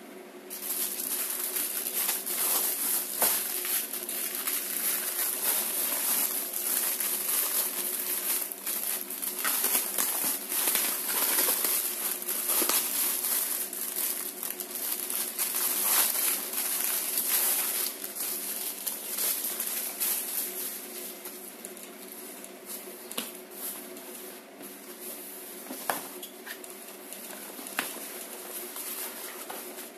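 Thin clear plastic packaging bag crinkling and crackling as it is handled and pulled open around a folded cloth backdrop. Over the second half it gives way to quieter rustling of the cloth being unfolded, with a few light taps, over a steady low hum.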